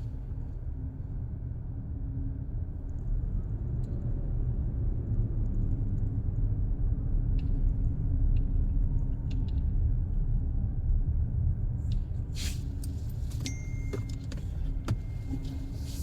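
Car cabin road noise: a steady low rumble of the car driving, with a few light clicks and rattles and a short thin high tone near the end.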